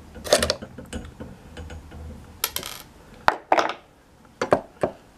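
Irregular sharp clicks and clatters of hand tools and small parts: a plastic clip on a tubular motor's end cap being pried open with pliers, then the small plastic piece and the pliers set down on a wooden table.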